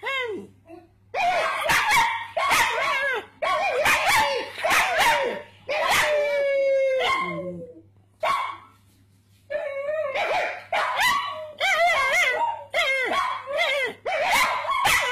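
Pug-cross dog giving a run of yelping, howling barks that waver in pitch, like talking. One long falling howl comes about six seconds in. After a short lull, quicker, shorter yelps follow.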